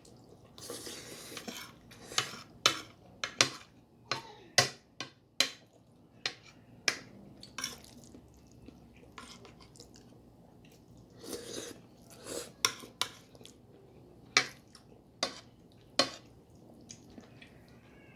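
Cutlery clicking and scraping against a plate while eating, with a dozen or so sharp separate clinks and a couple of brief scraping stretches, along with faint chewing.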